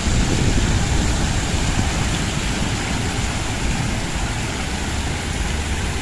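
Water splashing steadily from an open-air fountain and a stepped cascade of water spouts, with a low, uneven rumble underneath.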